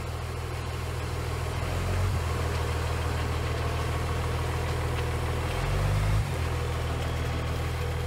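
Concrete mixer truck's diesel engine running steadily with a low hum, briefly speeding up about six seconds in and then settling back.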